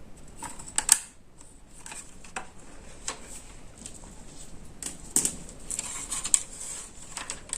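Irregular clicks and light clattering of a multimeter being handled and set up, its selector switch and probe leads knocking, with a few sharper clicks about a second in and again near five and six seconds in.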